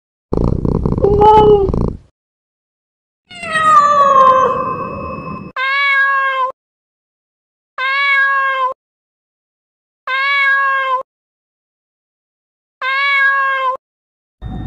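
Domestic cat meowing: a rough, noisy yowl, then a long meow falling in pitch, then four identical short meows about two seconds apart.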